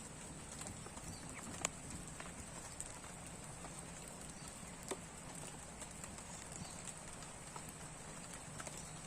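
Irregular sharp ticks over a steady outdoor hiss with a high thin hum: the first drops of rain beginning to fall.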